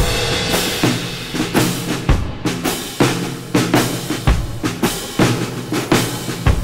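Background music driven by a drum kit with a steady beat, starting suddenly.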